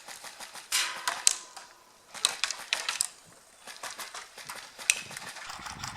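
Airsoft replicas firing in short bursts of rapid sharp clicks, several bursts with gaps between them.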